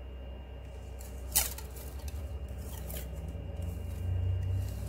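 Clear plastic film tape being pulled and pressed over a cactus graft by hand: soft handling and rubbing noises, with one sharp click about a second and a half in, over a low steady hum.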